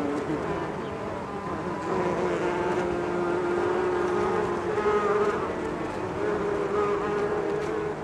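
Many bees buzzing around a large hive: a dense hum of many overlapping drones at slightly different pitches that waver and swell.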